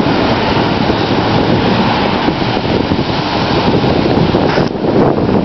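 Loud, steady rushing noise of wind buffeting the microphone.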